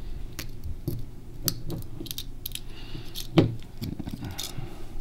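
Small scattered clicks and taps as a pin pokes holes in aluminium foil pressed into a metal socket, with the light metallic handling of the socket, and one sharper click about three and a half seconds in.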